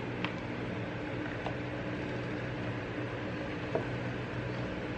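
A few faint clicks and taps of an iPad Pro and its folio case being handled on a wooden table, over a steady low hum of room noise.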